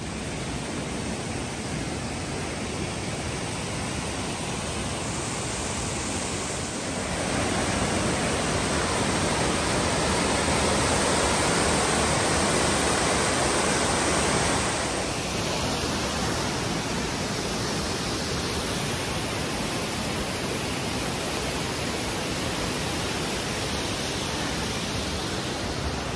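Steady rushing of a waterfall and its cascading creek, a continuous roar of falling water that grows louder from about seven seconds in and eases back a little after about fifteen seconds.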